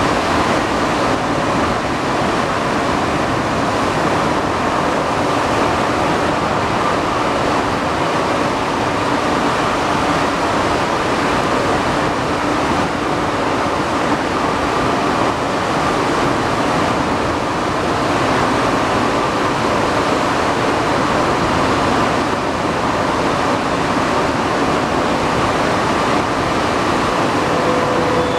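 Alstom NS-93 metro train running at a steady speed: a loud, even rushing noise with a faint steady hum, and a tone that starts to fall slightly near the end.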